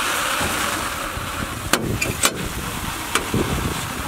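Kubota DC-70 rice combine harvester running steadily while grain pours from its outlet into a sack, with three sharp clicks or knocks in the second half.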